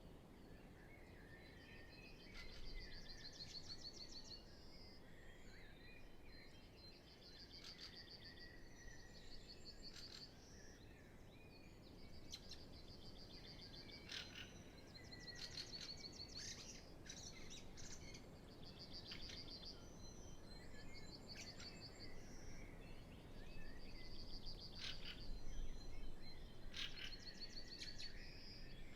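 Spring dawn chorus of songbirds: several birds singing, one repeating a high, rapid trilled phrase every few seconds among shorter chirps, with no wind.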